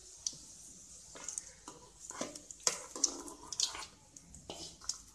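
A spoon scraping and clinking as fried garlic cloves in oil are spooned into a clay pot of cooked moringa leaves and dal: a scattered string of short clicks and wet scrapes, about eight in all.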